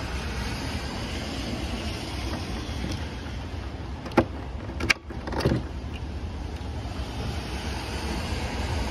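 Plastic bulb socket on the back of a car tail light assembly being twisted and pulled out of the housing. Two sharp clicks come about four and five seconds in, followed by a brief scrape, over a steady low rumble.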